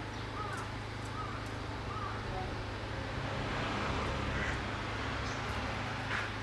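Wild bird chirping: three short, curved chirps about 0.7 s apart in the first two seconds and a brief sharper call near the end, over a steady low hum of distant traffic that swells briefly around the middle, as a vehicle passing.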